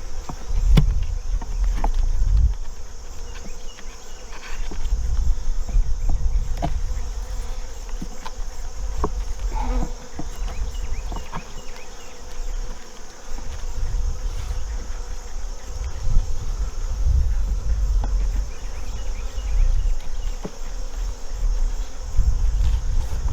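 Honeybees buzzing around an open hive, with scattered knocks and clicks from handling the hive, under a low rumble that swells and fades.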